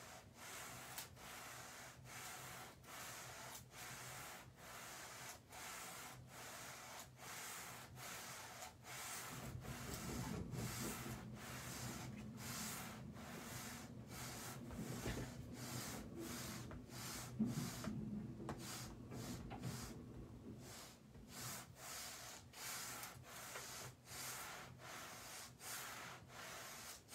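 Cricut EasyPress heat press sliding back and forth over parchment paper while heat-setting ink on a fabric banner: soft, faint, rhythmic rubbing strokes, about two a second. A low hum joins in for a stretch in the middle.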